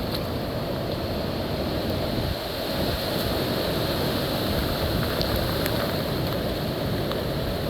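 Hurricane wind and rain: a steady, dense rush of noise with wind buffeting the microphone, easing slightly for a moment about two and a half seconds in.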